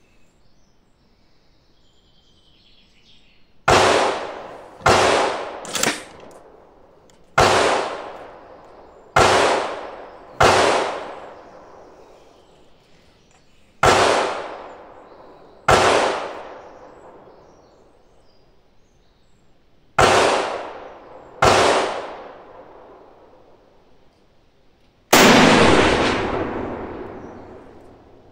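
Rifle shots on a covered firing range, each a sharp report with a ringing echo: ten shots at irregular intervals, three of them within about two seconds, too fast for one bolt-action rifle, so other rifles on the line are firing. About 25 seconds in comes the loudest shot with the longest tail, from the Yugoslav Mauser M48A bolt-action rifle in 8x57 IS firing a handload with period bullets and powder.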